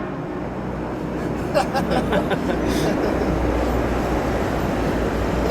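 Steady low rumble of a running vehicle, with a few faint knocks about two seconds in.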